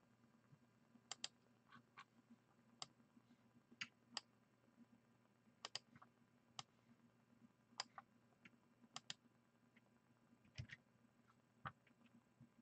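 Faint, irregular clicking of a computer mouse and keyboard, a few clicks coming in quick pairs, over a faint steady low hum.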